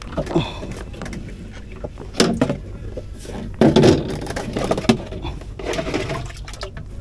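Water poured and sloshed from a plastic container onto the boat, in several separate splashing bursts.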